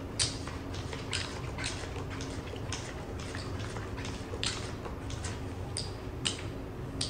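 Blackjack cards being dealt onto a felt table and casino chips being handled: a string of light, sharp clicks and taps, a few a second and irregular, over a low steady hum.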